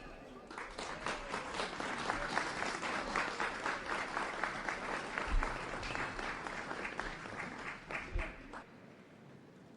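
A crowd applauding with dense, irregular clapping that starts about half a second in and dies away near the end.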